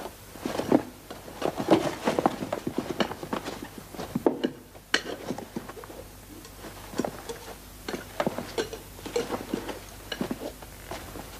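Scattered light knocks and clinks of tableware and people moving about in a room, with a sudden short gap about four seconds in.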